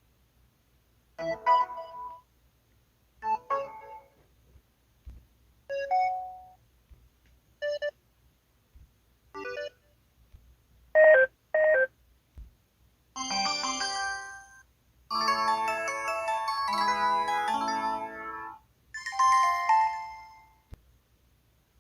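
LG-LU1600 mobile phone's built-in alert sounds played one after another: short electronic chimes about two seconds apart, a quick double beep about eleven seconds in, then three longer melodic ringtone jingles near the end.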